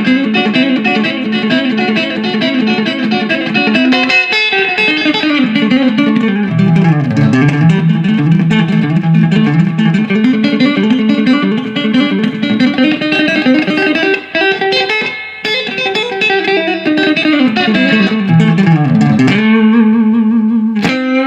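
Electric guitar playing a fast country chicken-pickin' lick, hybrid picked with pick and fingers, two strings plucked together. A repeated pedal note opens and closes it, with quick runs in between that twice sweep down to the low strings.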